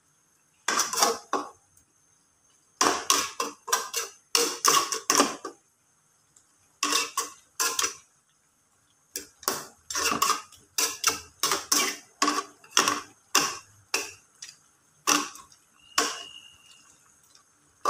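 A metal spatula and spoon knocking and scraping against an aluminium wok while stirring chicken in a thin green chilli sauce. The quick clanks come in uneven runs with short pauses between them.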